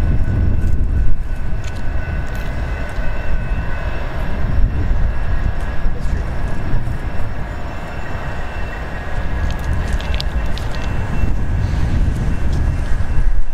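Low, steady rumble of a Union Pacific freight train's diesel locomotives, with a faint steady high whine over it.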